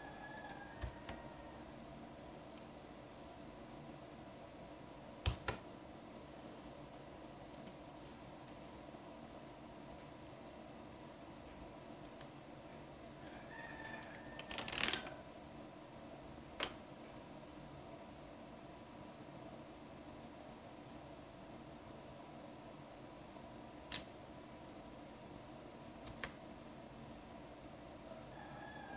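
Insects chirping faintly at a high pitch, in even pulses a little more than once a second over a constant high tone. A few single sharp clicks of computer keys stand out now and then.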